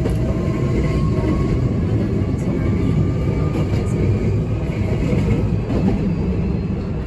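Hankyu 8300-series electric train (car 8330) running, with a steady low rumble of wheels on rail and a faint whine that rises in pitch as it gathers speed. The whine comes from its Toyo Denki hybrid SiC VVVF inverter and totally enclosed induction traction motors.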